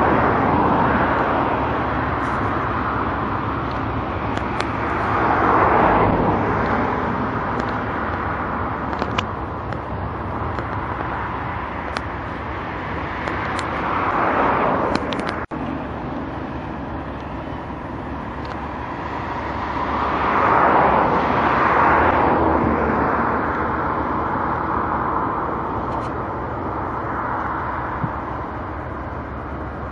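Steady outdoor traffic rumble with road vehicles passing several times, each swelling and fading over a couple of seconds. The sound breaks off for a moment about halfway through.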